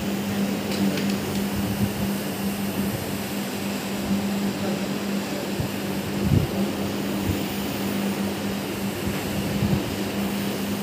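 Single-disc rotary floor machine running steadily while it shampoos carpet, its motor giving an even, steady hum over the scrubbing of the brush.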